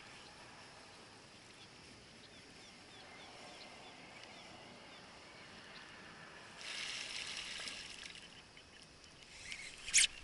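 Quiet open-water background from a kayak with faint scattered chirps, then a noisy rush of water-like sound for about a second and a half, past the middle, and one sharp loud crack just before the end.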